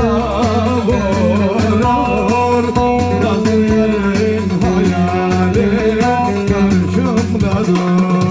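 A man singing into a microphone with instrumental backing and a steady beat, his vocal line wavering and ornamented. Near the end he holds one long note.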